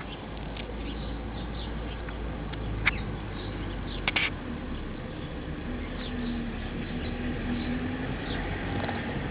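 Outdoor ambience: faint, short, high bird chirps over a low steady rumble, with a sharp click about three seconds in and a louder quick run of clicks about a second later.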